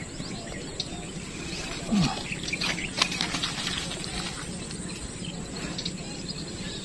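Outdoor ambience of birds and insects chirping, with a brief low falling sound about two seconds in.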